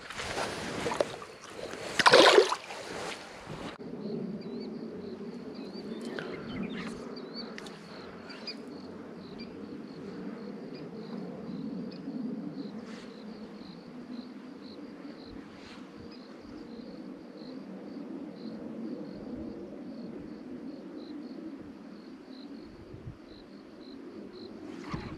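A loud splash and water noise as the released bass drops back into the pond about two seconds in. After that a steady low drone with a faint, regular high chirping over it.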